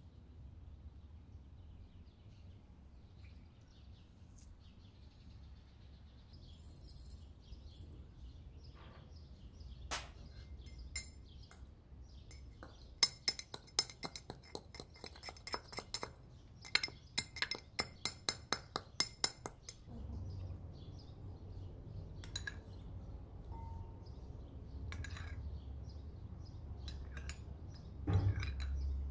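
Brass pestle pounding in a small brass mortar: a quick run of sharp metallic clinks, about three a second, for some six seconds midway, with a few single clinks just before.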